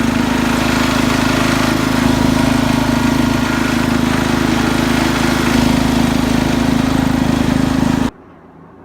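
Cub Cadet 149 garden tractor engine running steadily with a strong low hum, cut off abruptly about eight seconds in.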